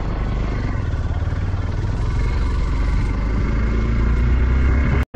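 Motorcycle running at riding speed, the engine under a steady, heavy low rumble.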